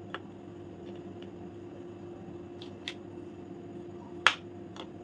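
A few light taps and clicks as white-chocolate-coated balls are set down on a plate by hand, the sharpest about four seconds in, over a faint steady hum.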